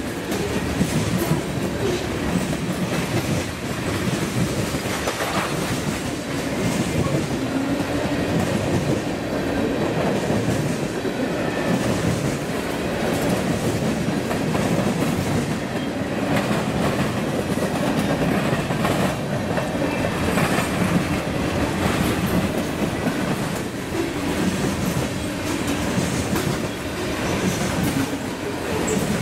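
Freight train's covered hoppers and tank cars rolling past close by. The steady noise of the wheels on the rails carries a clickety-clack of wheels over the rail joints.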